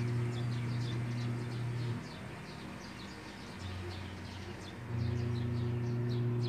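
A steady low hum that drops away about two seconds in and comes back near five seconds, under many faint, short, high chirps of small birds.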